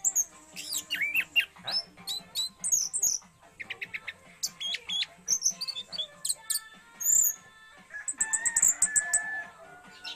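Caged orange-headed thrush (anis merah) singing: a rapid, varied string of short whistles, slurred notes and chirps, turning harsher and buzzier about eight seconds in.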